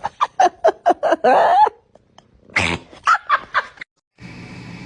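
A pet animal giving a quick run of short, high calls, about five a second. After a pause comes one longer call and a few more short ones; they stop short near the end, when a steady low hum takes over.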